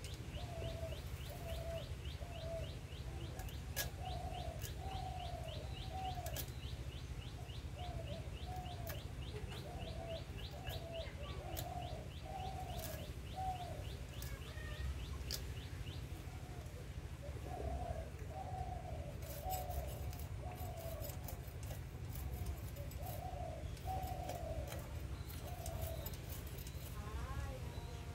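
Birds calling over and over in short cooing notes, with a fast, high ticking chirp for the first half. Now and then there is a sharp click or scrape of a small fish being scaled against a boti blade, with a quick run of them about two-thirds through.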